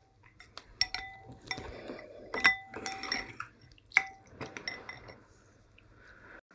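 Metal utensils clinking and scraping against a steel pot and dishes, five or six ringing clinks with the loudest about two and a half seconds in.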